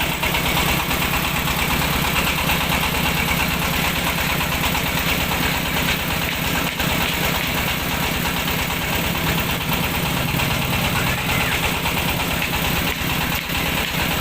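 Mobile rice-milling machine running steadily: a fast, even engine throb under a dense rattling hiss from the milling machinery.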